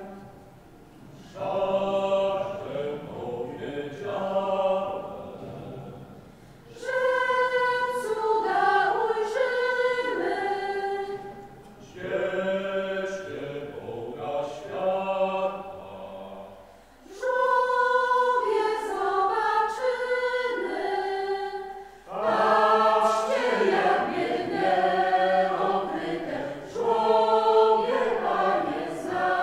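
Mixed choir of women's and men's voices singing a hymn in phrases, with brief breaks between phrases about every five seconds.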